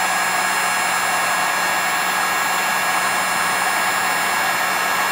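Hot-air blower running steadily, a constant airy rush over a low hum, warming freshly applied 30-minute epoxy so it thins and soaks into the foam filling a broken rod's joint.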